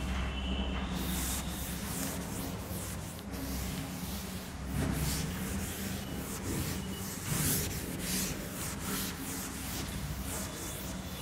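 A pen or marker scribbling on a writing surface: quick, irregular, scratchy strokes, louder around the middle, as in shading or writing on a diagram. A steady low hum runs underneath.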